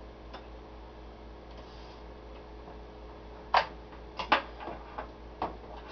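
Several sharp clicks and knocks from a CB radio and a Turner +3 desk microphone being handled, over a steady low electrical hum. Most of the clicks, and the loudest, come in a cluster a bit past halfway.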